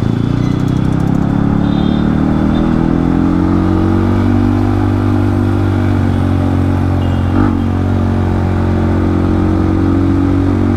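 Yamaha MT-15's 155 cc single-cylinder engine running through a loud exhaust, heard from the rider's seat while riding. The note climbs a little over the first few seconds, then holds steady, with one brief knock about seven seconds in.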